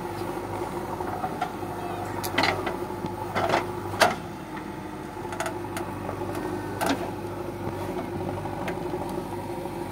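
JCB backhoe loader's diesel engine running steadily as it digs soil, with a few short sharp knocks, the loudest about four seconds in.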